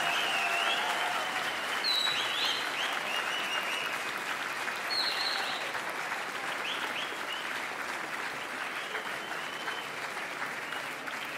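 A large audience applauding, with a few short high cheers over it in the first half. The clapping softens gradually.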